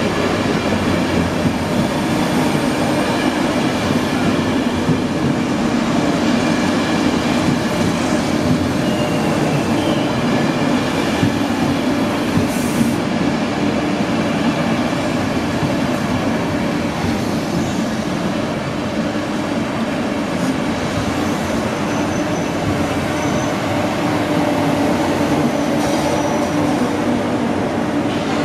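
Hungarian MÁV-START passenger coaches rolling along a station platform: a steady rumble of wheels on rail, with held humming tones and a few brief thin high squeals from the wheels in the second half.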